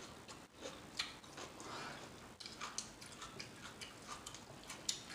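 A person chewing food with wet lip smacking: many small, irregular clicks and squelches, a few a second.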